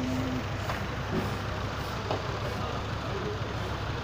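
A steady low engine rumble under busy yard noise. A held voice call ends just after the start, and two light knocks come about a second apart.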